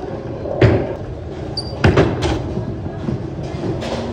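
Bowling ball rolling down a lane with a steady rumble. A heavy thud comes about half a second in, and a cluster of sharp clacks near the middle.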